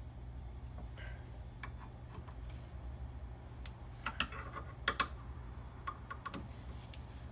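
Light metal clicks and ticks of a pry bar working at the old fork seal inside the aluminium fork slider of a 1977 Kawasaki KZ400, levering the seal up. The clicks come scattered, with a louder cluster about four to five seconds in.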